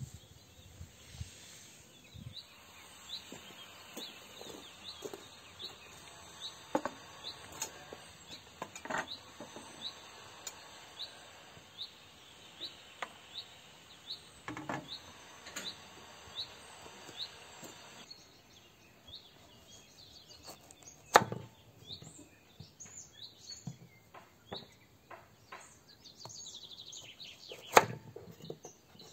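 A bird repeats a short rising chirp, about one and a half times a second, over a quiet garden background. In the second half a kitchen knife cuts round zucchini on a wooden cutting board, giving sharp knocks, two of them much louder than the rest.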